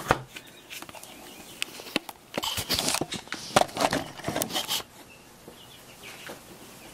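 Handling noise as the camera is picked up and moved: a string of rustles, scrapes and small knocks, busiest in the middle, then settling near the end.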